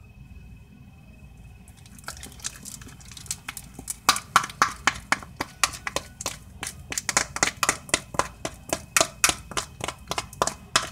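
Half-activated glue slime being stirred with a plastic spoon in a plastic tub: quick, sticky clicks and pops, several a second, starting about two seconds in and growing louder about four seconds in. The slime is still mostly liquid as it activates.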